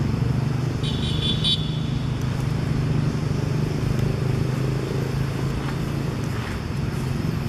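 Steady low hum of a running engine, with a brief high chirp about a second in.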